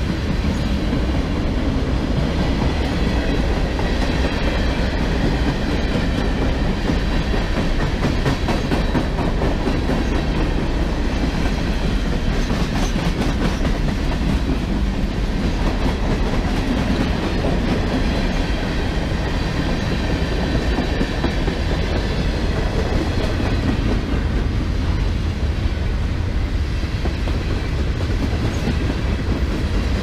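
Manifest freight train passing close by at a steady speed: a continuous rumble of the rolling cars, with the steel wheels clacking rapidly over the rail joints.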